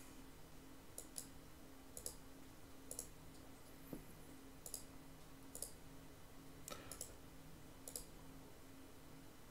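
Faint, irregular computer mouse clicks, about nine of them, some in quick pairs, over a faint steady hum.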